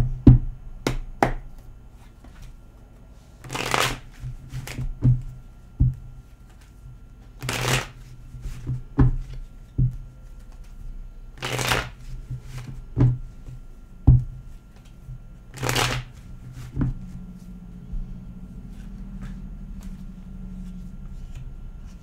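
A tarot deck being shuffled by hand: four short rustling bursts of cards about four seconds apart, with light knocks in between, stopping about three-quarters of the way through.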